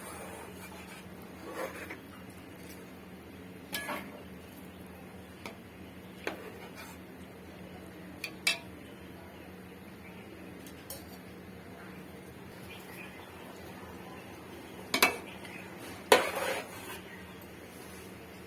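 Metal utensil clinking and knocking against a cooking pot, in about six scattered strikes, the loudest two near the end, over a steady low hum.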